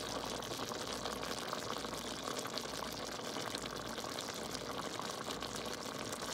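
Shell-on shrimp in a butter, garlic and lemon sauce simmering in a pan: a steady bubbling with many small pops and crackles as the sauce cooks down.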